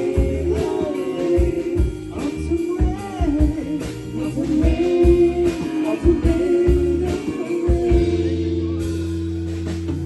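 A live rock band playing a slow song: singing with held, wavering notes over electric guitar, bass and drums. About eight seconds in the drum hits thin out and a long bass note is held.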